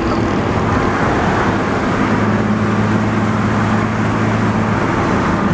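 BMW E36 heard from inside the cabin while driving: a steady low engine drone over tyre and road noise.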